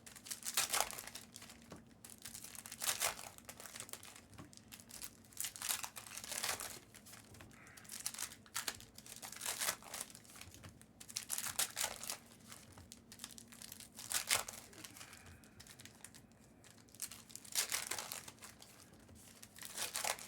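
Trading-card pack wrappers crinkling and tearing as packs are opened by hand, in short rustling bursts every second or two.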